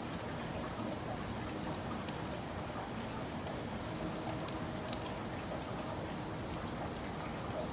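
Steady rain with individual drops ticking sharply on a surface, two louder drops about halfway through.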